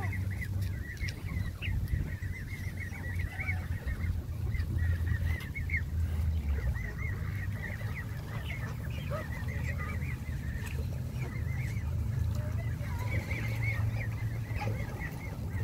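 A flock of Canada geese calling near the water, many short calls one after another, over a low steady rumble.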